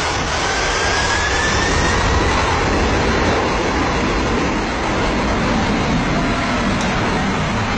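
Aeroplane passing low overhead, its engines making a loud, steady roar, with a whine rising in pitch over the first two seconds.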